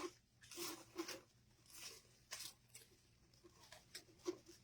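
Faint scattered rustling and crinkling of ribbon loops being pulled and shaped by hand.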